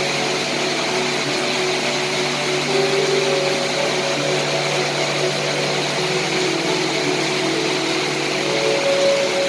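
Steady rain hiss, with soft background music of held low notes that shift from time to time underneath.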